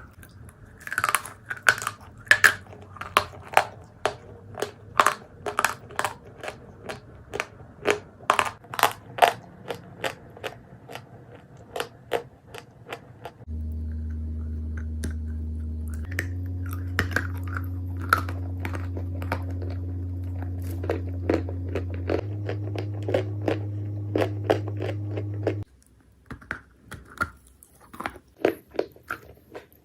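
Dry Turkestan clay crunching as it is bitten and chewed: a run of sharp crisp crunches, some close together. From about a third of the way in to near the end, a steady low hum runs under the crunches, stepping up in pitch twice before cutting off suddenly.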